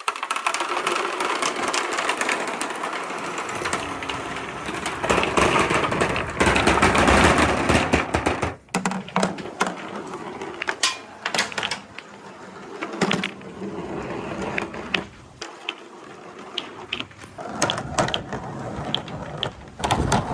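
Many balls rolling and clattering down a handmade wooden marble-run track: a dense, continuous rumble of rolling with rapid clicking for the first eight seconds or so, which drops off suddenly, followed by scattered clicks and shorter runs of rolling as the remaining balls come through.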